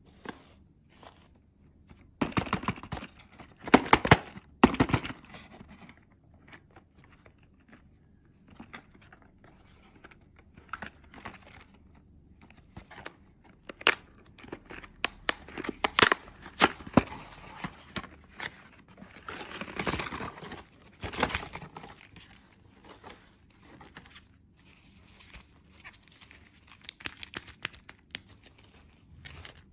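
Packaging being torn open and crinkled by hand in irregular bursts, with sharp crackles and clicks: candy wrappers being unwrapped.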